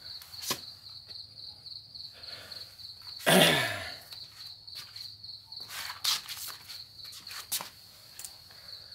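A cricket trilling steadily, a fast pulsed high note throughout. About a third of the way in, a loud brief sound slides down in pitch, and a few sharp knocks of handling are heard.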